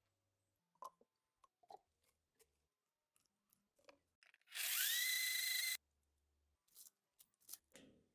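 Electric blender motor spinning up with a rising whine, running for about a second and then stopping abruptly as it blends a sauce of roasted capsicum, onion, coriander and pickled jalapeños. Before it come light taps and clicks of ingredients dropping into the jar.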